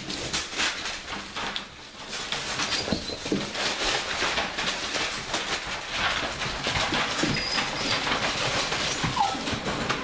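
Puppies scrambling over a hard plastic play structure: a busy, irregular patter of paws, clicks and knocks on the plastic, with a few brief high squeaks.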